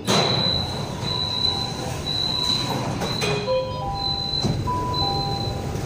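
Door-closing warning of a Shenzhen Metro Line 6 train at a station stop: a high beep repeating with short gaps, joined about three and a half seconds in by a lower two-note alternating tone, over the steady low hum of the train. The doors are about to close.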